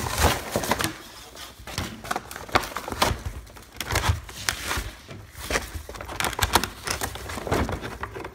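Action-figure packaging being opened, with the clear plastic blister tray and cardboard box handled and pulled apart: irregular plastic crinkling and crackling with sharp clicks.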